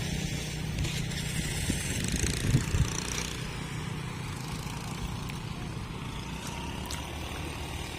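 An engine running steadily, with a brief louder low rumble about two and a half seconds in.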